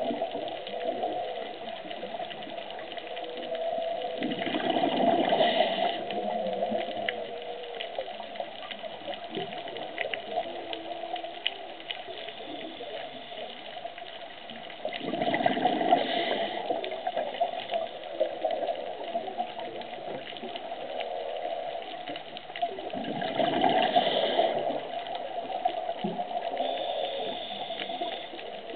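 Underwater sound of whale song: wavering, drawn-out tonal calls over a constant watery hiss. A diver's scuba regulator exhales in loud bubbling rushes three times, about every eight to nine seconds.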